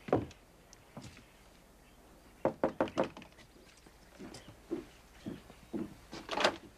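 Knuckles knocking on a wooden door: a quick run of about five raps, then softer thuds and another loud thump near the end.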